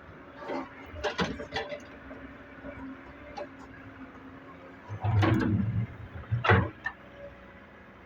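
Excavator bucket loading a tractor trolley: a few sharp metal knocks, then a heavy thud with a deep rumble just after five seconds and another hard knock about a second later, over a faint steady engine hum.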